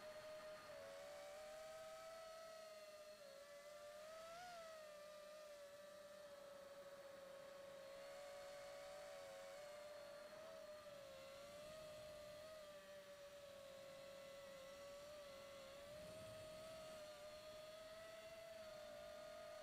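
Faint whine of a 5-inch FPV quadcopter's motors and propellers, picked up by its onboard camera. It is a steady tone that wavers up and down in pitch as the craft flies, with a brief upward blip about four seconds in.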